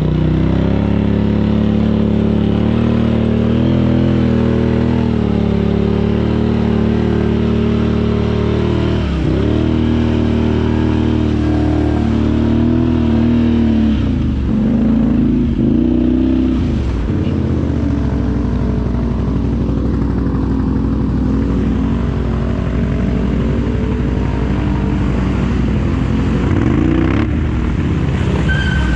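ATV engine running as the quad is ridden through mud and standing water, the revs dropping and climbing again a few times, around ten seconds in, in the middle and near the end.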